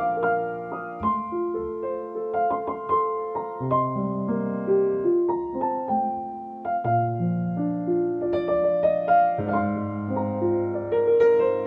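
Background piano music: a solo piano playing a gentle run of single notes over held bass notes that change every few seconds.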